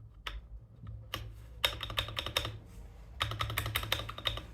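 Typing on a mechanical keyboard fitted with Akko linear switches, Cream Yellow with a Matcha Green just swapped in. A few single keystrokes come first, then rapid runs of keystrokes about a second and a half in and again from about three seconds.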